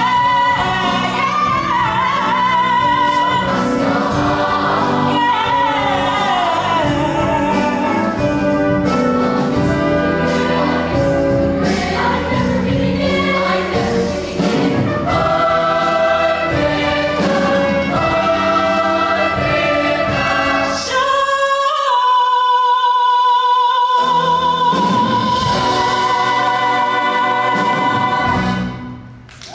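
Show choir singing with full instrumental accompaniment. About 22 seconds in the low accompaniment drops out for two seconds while a long high note with vibrato is held. The band comes back under the note, and the music ends just before the close.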